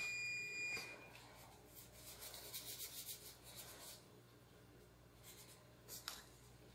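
An electronic beep, one steady high tone about a second long at the start, from the oven timer of a dish that is cooking. Then soft rustling and rubbing of gloved hands pressing dough in a plastic sambusa mold, with a short click near the end.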